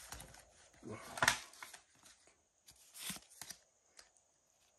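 Pokémon trading cards being slid one by one through a small stack held in the hand, card rubbing on card in a few brief, soft swishes; the loudest comes about a second in.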